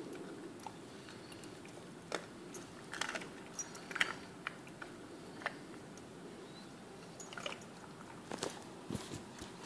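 Czechoslovakian wolfdog chewing on a piece of raw meat: irregular wet crunches and clicks of its teeth, busiest about two to four seconds in and again near the end.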